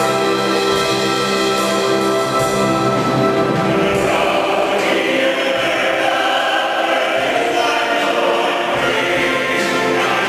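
Music with singing: steady held chords, then a choir of voices singing from about four seconds in.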